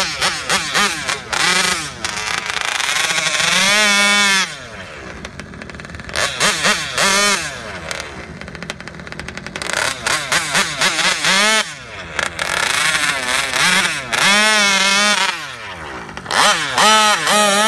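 Modified 85cc two-stroke petrol engine of an HPI Baja RC car, revved in quick throttle blips with several longer, louder runs whose pitch rises and falls.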